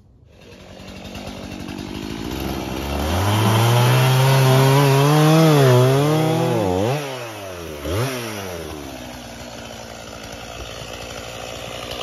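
Chainsaw running at high revs and cutting into a fallen log, its pitch wavering under load and sagging sharply twice midway, then settling to a lower, steadier run.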